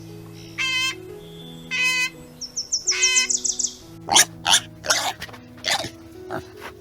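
Animal calls over background music with held notes: first a bird's short ringing chirps and quick trills, then from about four seconds in a run of harsh, noisy grunts or squeals about every half second.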